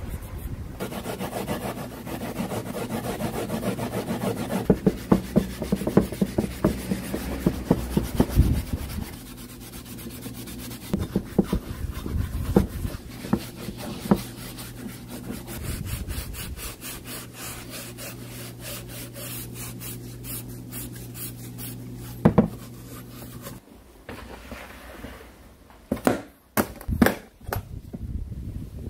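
Green scouring pad scrubbing soapy metal jackhammer parts in a parts-washing tub, in rapid back-and-forth strokes over a steady low hum. The hum stops a few seconds before the end, and a few sharp knocks follow.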